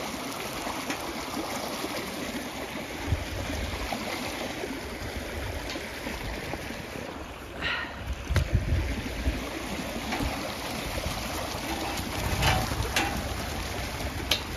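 Floodwater rushing steadily down a grassy field channel as a bubbling brook, with a few low thumps along the way.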